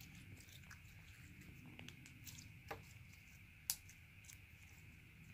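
Clear slime being squished and poked by hand: faint, scattered sticky clicks and pops, with two sharper clicks in the middle, the second the loudest.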